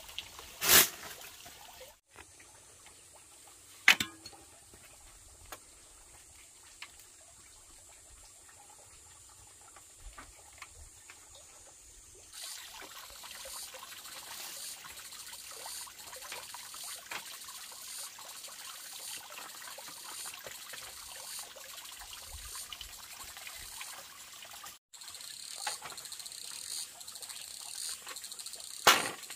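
Dry bamboo poles knocking as they are handled and set down: a sharp clack near the start, another about four seconds in, and one just before the end. Between them runs a steady high insect chirring, louder in the second half.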